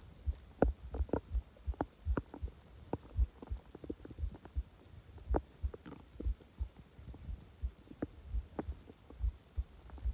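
Human stomach and intestines gurgling: a string of short, irregular low pops and clicks, several a second.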